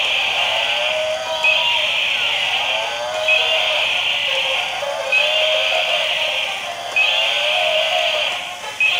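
A battery-operated toy's electronic sound effect playing from its small speaker: a short, tinny, buzzy phrase that loops about every two seconds, each repeat starting abruptly.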